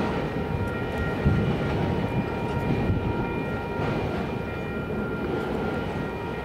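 Diesel locomotive running, a steady low rumble with a constant whine of several tones over it.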